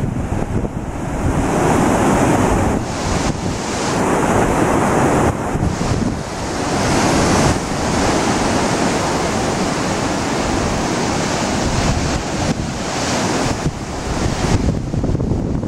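Wind buffeting the microphone over the continuous wash of sea surf breaking on a rocky shore.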